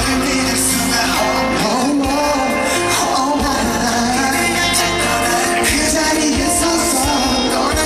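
Pop music with a male singer over a heavy bass line; the long held bass notes break into shorter hits about five and a half seconds in.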